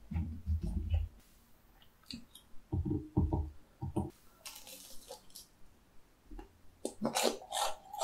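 Close-miked eating: soft, wet chewing in the first second and again about three seconds in, then a run of sharp, crisp crunches near the end as battered fried food (twigim) is bitten and chewed.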